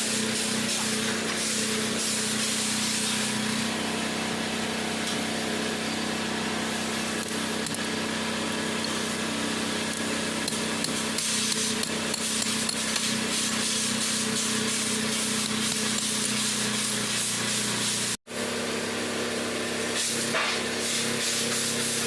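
A machine running steadily: a constant low hum on one note with a hiss over it, cut off for an instant about eighteen seconds in.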